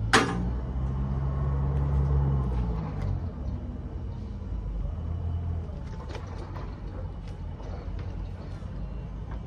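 A sharp knock, then a vehicle engine running for about three seconds, dropping in pitch and fading. After that a steady low rumble with a few faint clicks.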